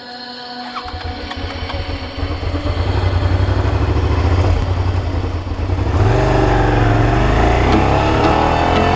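Suzuki SV650's V-twin engine running under way, growing steadily louder over the first few seconds; about six seconds in it gets louder again and its pitch climbs as the bike accelerates.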